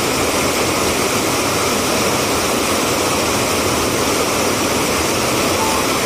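Mountain stream rushing through a white-water rapid between boulders, a steady, even roar of tumbling water.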